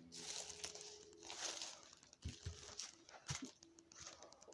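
Rustling and crunching of footsteps over debris, with a few dull thumps about two to three seconds in.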